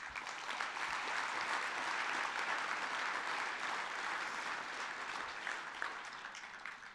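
Audience applauding, swelling in the first second, holding steady, then fading away near the end.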